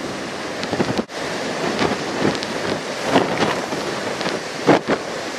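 Typhoon-driven heavy surf breaking and rushing over a rocky shoreline, with strong wind buffeting the microphone. The roar swells in several louder surges.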